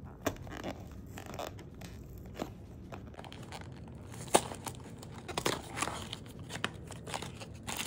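Small cardboard box being torn open by hand at its top flap: scattered crackles and tearing, one sharp snap about four seconds in, and denser crackling in the last few seconds.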